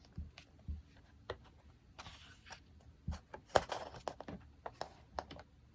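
Pages of a printed photo book being handled and turned: a scatter of soft paper rustles and light taps, the loudest about three and a half seconds in.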